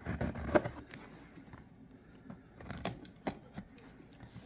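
Scattered clicks and rustles from handling a taped, cardboard-wrapped package as it is being opened.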